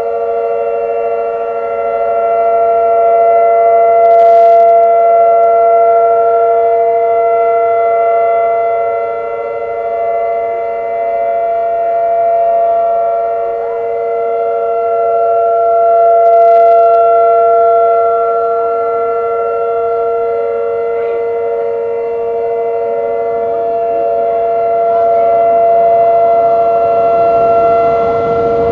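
Several outdoor warning sirens, Whelen 2806 and 2905 electronic sirens among them, sounding the steady Alert signal of a test together, their different pitches layered into a dissonant chord. The loudness swells and fades every several seconds, and a rushing noise builds near the end.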